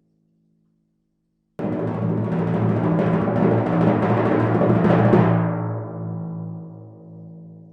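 Timpani roll: after a second and a half of silence it starts suddenly, grows louder for a few seconds, then stops about five seconds in, and the drum rings on and fades.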